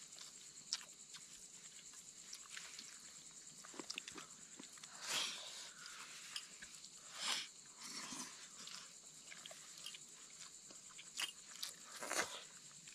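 People eating rice and egg curry with their hands from metal pots and bowls: soft clicks and scrapes of fingers and food against the pots, with chewing. A few brief louder swishes come about five, seven and twelve seconds in.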